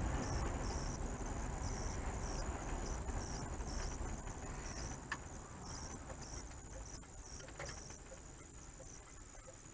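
Car road and engine rumble from inside the cabin, fading steadily as the car slows. A faint high chirp repeats about twice a second throughout, and there is a single click about halfway through.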